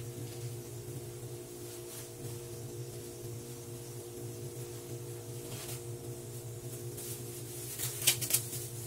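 A steady low hum under adobo sauce simmering in a wok, with a quick cluster of sharp clicks about eight seconds in.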